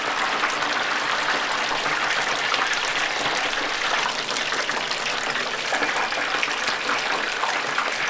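Battered frogs deep-frying in a wide tray of hot oil: a steady, even sizzle with bubbling and fine crackle.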